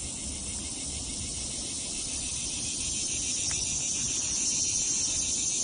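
Insect chorus in the woods: a steady, high-pitched, fast-pulsing buzz that grows a little louder about three seconds in.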